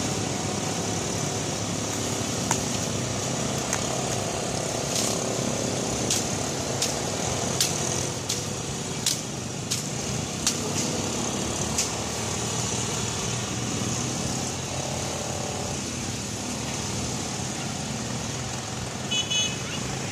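Engines of a line of ATVs (quad bikes) running as they ride off along the road, a steady low rumble. A string of sharp clicks comes between about two and twelve seconds in, and a few short high-pitched tones sound near the end.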